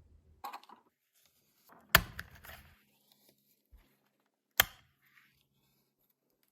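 Small plastic clicks, scrapes and rattles from a Toyota power window switch being handled and pried open, with two sharp snaps about two seconds in and again near four and a half seconds.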